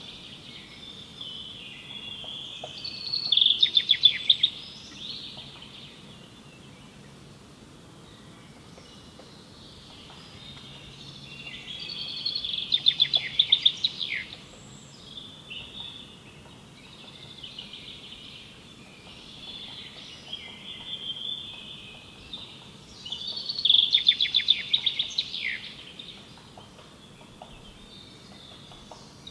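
A songbird singing: a fast, trilled song of about two seconds, repeated three times, with quieter chirps in between.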